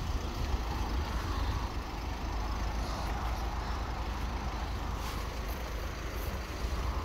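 Car engine idling, a steady low rumble.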